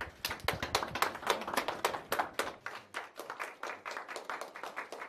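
A small group of people clapping, with separate, irregular claps that gradually thin out and grow weaker.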